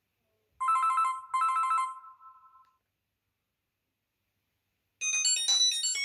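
Alcatel VM800 mobile phone previewing its preset ringtones through the handset speaker. About half a second in, a trilling telephone-style ring plays in two short bursts and fades out. Near the end a different ringtone begins with a quick run of high notes.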